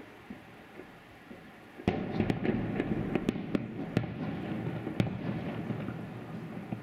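Fireworks salute: about two seconds in, a sudden rumble of bursting shells sets in, with a string of sharp cracks, the loudest about two, four and five seconds in, then dying away.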